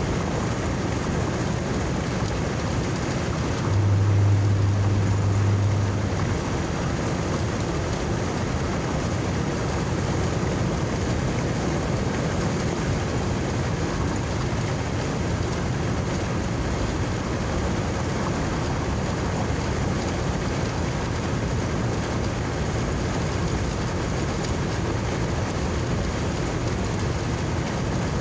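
Steady engine and road noise heard inside a moving car's cabin, with a low drone that swells for a couple of seconds about four seconds in.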